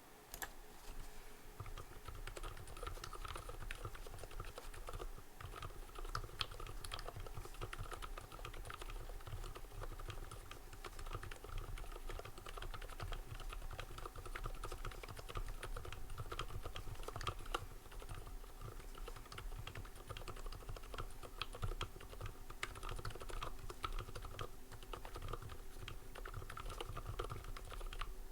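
Continuous fast typing on a JJ50 40% ortholinear keyboard fitted with lubed Zilent silent tactile switches: a dense stream of soft, muted keystrokes with no sharp clicks.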